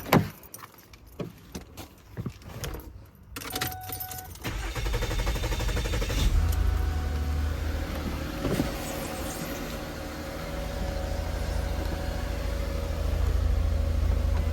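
Keys jangling and clicks, then a brief tone, then the 2006 Lincoln Zephyr's 3.0-litre V6 starts about four seconds in and idles steadily. This is the first start after a radiator replacement and coolant refill.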